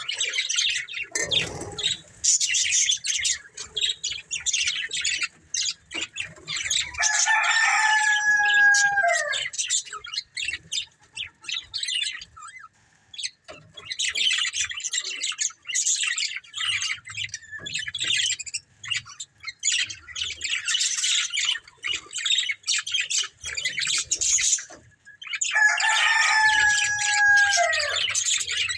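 Budgerigars chattering in fast bursts of warbling chirps with short pauses between them, and two longer falling calls, one about eight seconds in and one near the end.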